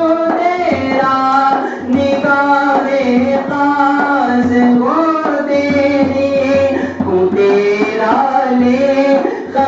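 A man singing a devotional manqabat, with held and gliding melody lines over a steady hand-drum beat.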